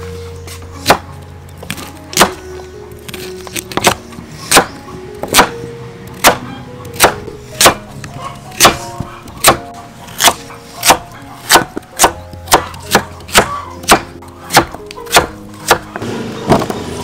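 A kitchen knife chopping through a carrot onto a wooden chopping board, each stroke a sharp knock. The chops come at about one a second and speed up to about two a second in the second half.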